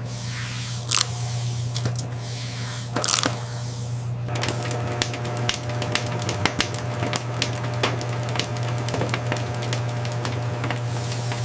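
Popcorn production machinery running with a steady low hum, with a few short hissing bursts. From about four seconds in, a dense stream of irregular crackling clicks.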